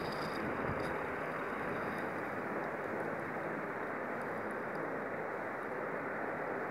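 Steady background hiss with no speech, and a couple of faint ticks.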